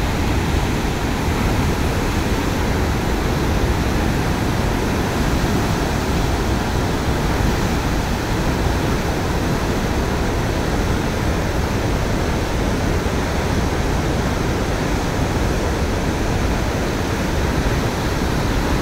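Floodwater pouring through the open radial spillway gates of Tawa Dam and churning in the river below: a loud, steady rush with no breaks.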